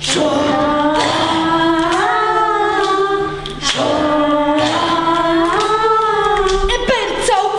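Voices singing a stage-musical number with little or no instrumental backing: two long held phrases, the first breaking off about three and a half seconds in.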